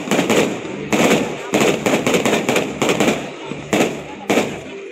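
Fireworks display, shells bursting one after another in quick succession, about two to three bangs a second, each with a short crackling tail.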